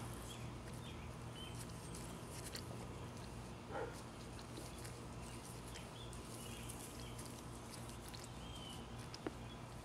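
Faint outdoor background: a steady low hum with a few faint bird chirps, and one short animal call about four seconds in.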